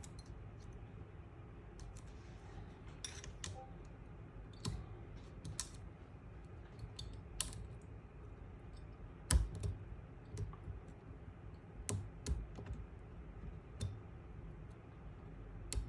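Small, irregular metallic clicks and taps as a hand tool and fingers work at the trigger assembly of a Browning X-Bolt rifle, trying to seat a replacement trigger spring.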